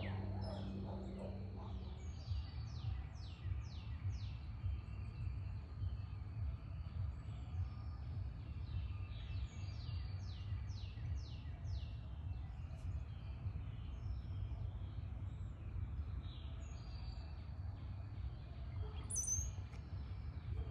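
Backyard birds calling: one bird gives a fast run of descending high notes, about five a second, twice, with other short high chirps scattered around it, including a sharp one near the end. A steady low rumble of background noise runs underneath.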